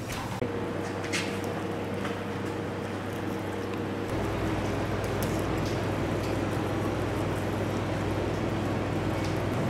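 A steady low machine hum, which gets louder and changes tone about four seconds in, with a few faint clicks and scrapes of a knife cutting through a salmon on a wooden board.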